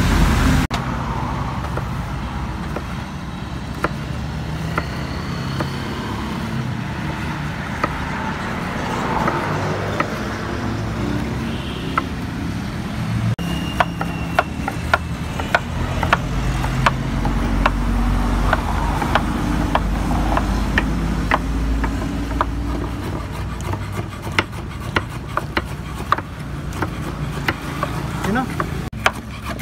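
Cleavers chopping bitter gourd on wooden chopping boards: sharp knocks, a few scattered at first, then about two or three a second through the second half. A steady low rumble of road traffic runs underneath.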